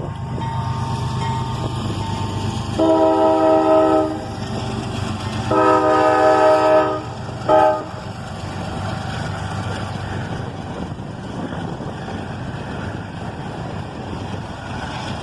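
CSX freight locomotive's air horn sounding two long blasts and a short one, the opening of the long-long-short-long grade-crossing signal, over the low rumble of the diesel locomotives pulling a train out of a siding.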